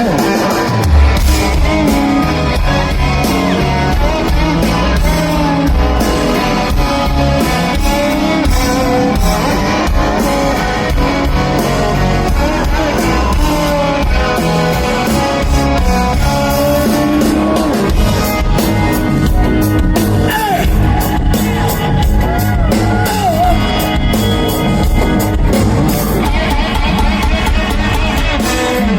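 Live rock band playing loudly: electric guitars, bass and drums, with a male voice singing over them.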